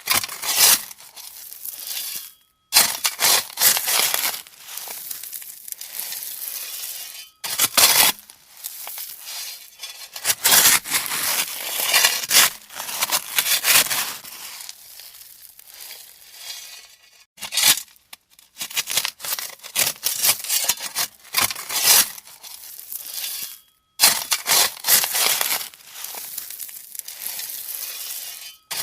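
Shovel working gravel: repeated crunching, scraping scoops of stones, each lasting a second to a few seconds, with brief pauses between them.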